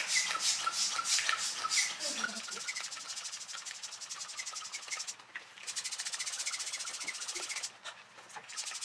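Small handheld electric air pump inflating a plastic inflatable, giving a fast, even buzzing rattle that stops briefly about five seconds in and again near the end.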